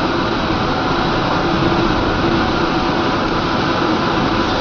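A steady, even machine hum with hiss that holds unchanged throughout, like a cooling fan or air-conditioning unit running.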